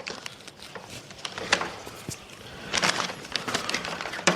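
Handling noise from a Dophin C1000 canister filter being unpacked: scattered clicks and short rustles from its media trays and cap being moved, with a sharper click near the end.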